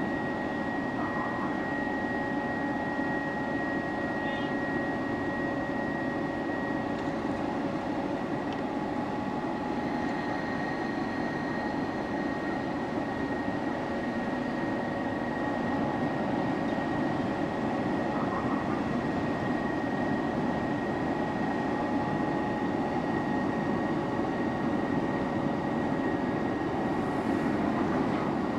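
Machinery of the large Ro-Ro passenger ferry Suzuran running alongside the quay: a steady drone of engines, generators and ventilation with a few thin whining tones over it.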